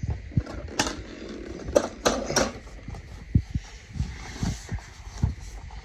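Unpacking noises from a pool robot's box: several sharp knocks and clicks of plastic parts and packaging being handled, mixed with soft thumps and rustling.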